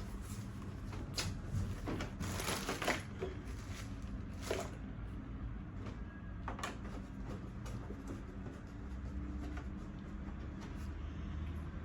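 Clicks, knocks and rattles of high-chair parts being handled and fitted together, most of them in the first five seconds and one more a little past halfway, over a steady low hum.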